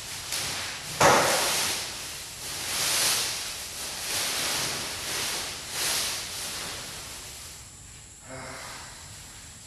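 Dry corn stalks rustling and swishing in repeated swells as they are cut and handled, with a sharp crunch about a second in.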